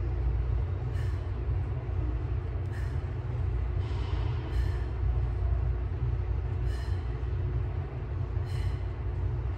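Steady low rumble with a constant hum, typical of a gym's air-handling system running. Over it come short breathy exhales every one to two seconds from a person doing tricep dips off a chair.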